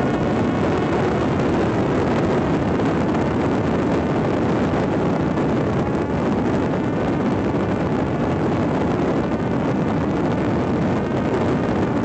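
Fixed-wing drone's electric motor and propeller whirring steadily at high power in flight, mixed with rushing wind.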